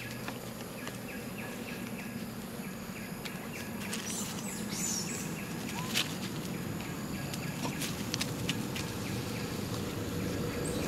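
Steady outdoor background noise with faint insect-like tones, scattered sharp clicks, and a few short high squeaks or chirps about four to five seconds in.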